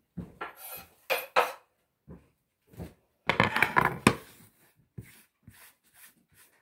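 Kitchen clatter of cookware and utensils: a few knocks and clinks, then a dense burst of clattering about three seconds in, with a wooden cutting board set down and slid across the counter.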